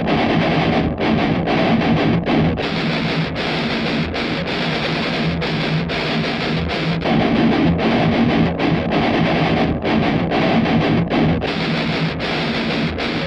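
High-gain distorted electric guitar playing a heavy metal riff through a Mesa Boogie Mark III preamp model, broken by many brief stops between phrases.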